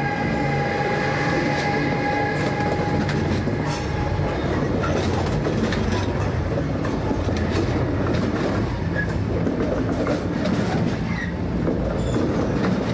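An electric locomotive passing close by with a steady whine of several tones that fades out over the first few seconds, then the rumble of a freight train's container wagons rolling past, with scattered clicks from the wheels on the rails.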